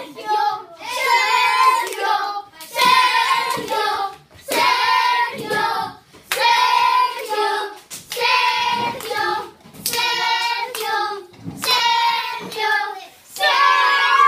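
A group of children chanting a classmate's name in a steady rhythm to cheer him on, about one chant every two seconds, eight times, with hand clapping.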